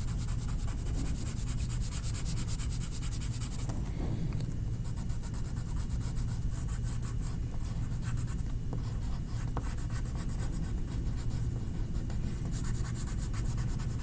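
Coloured pencil scratching on paper in quick back-and-forth strokes, filling in colour, over a steady low hum. The strokes are lighter through the middle and pick up again near the end.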